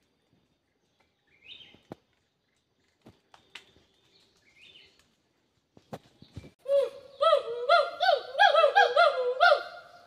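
A small tree-dwelling animal calling: a loud run of harsh, pitched calls, about four a second, each rising and falling in pitch. The calls start about two-thirds of the way in, after a few faint chirps, and stop just before the end.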